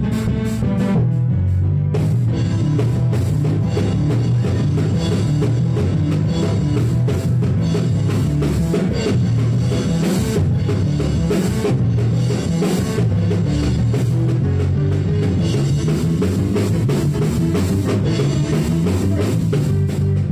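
Live band music with a drum kit playing a steady up-tempo beat, cymbal and bass drum strokes over bass notes.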